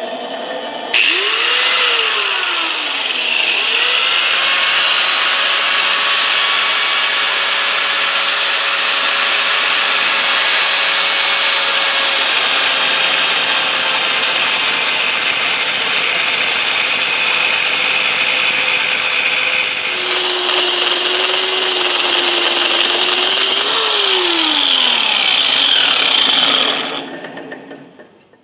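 Angle grinder with a cut-off wheel parting titanium bar that spins in a lathe: the grinder comes up to speed about a second in, then a loud, steady grinding hiss of the wheel cutting metal. Near the end the pitch drops as the wheel winds down and the noise dies away.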